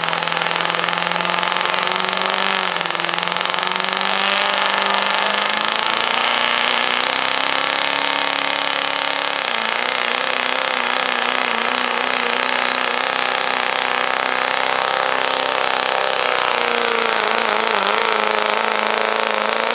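Diesel 4x4 pickup truck pulling a weight-transfer sled at full throttle, the engine running hard and steady. A high whistle rises in pitch over the first several seconds, then holds steady.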